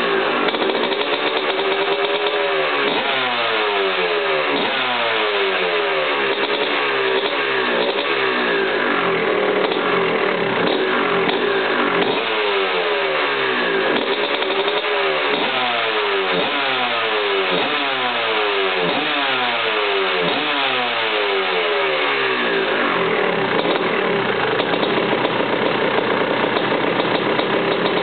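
1985 KTM 250 MX two-stroke motocross engine with a 38 mm Keihin PWK carburettor, running on its stand while the throttle is blipped again and again, the revs rising and falling every second or two.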